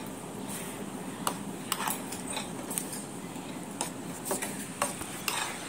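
A metal spoon stirring thick kurma gravy in a steel pan, clinking lightly against the pan about a dozen times at an uneven pace.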